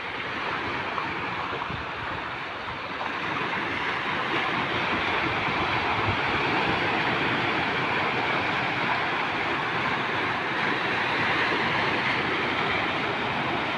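Steady rushing noise with no clear events, a little louder after about three seconds.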